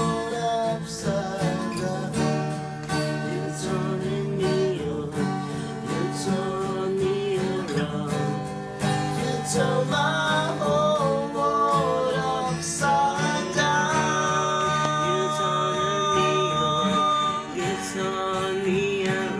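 Strummed acoustic guitar playing the song on, with a voice singing a melody over it without clear words.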